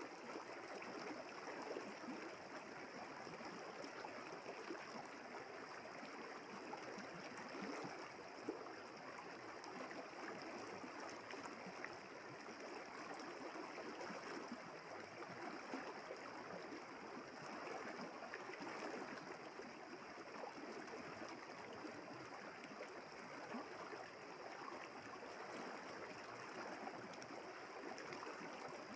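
River water flowing steadily: a continuous, even babble of moving water.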